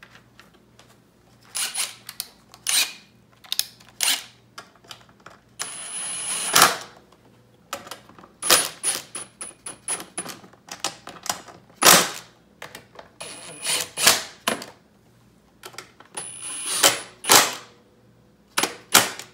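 Workshop clicking and knocking from tools and the plastic air box being fitted and bolted down, in several short runs of sharp clicks.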